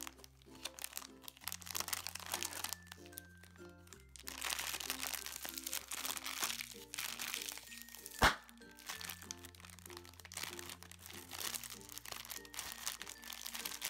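Foil blind-bag packet being crinkled and pulled open by hand, with a single loud sharp snap about eight seconds in, over background music with a steady bass line.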